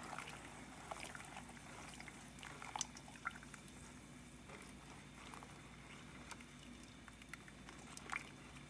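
Thin date-palm jaggery syrup simmering in a stainless steel saucepan while a silicone spatula stirs it: faint bubbling and sloshing with scattered small pops and clicks.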